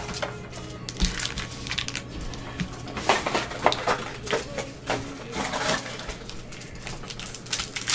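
Gloved hands handling a trading-card hobby box and its foil-wrapped packs: irregular crinkling, rustling and light taps, busiest in the middle.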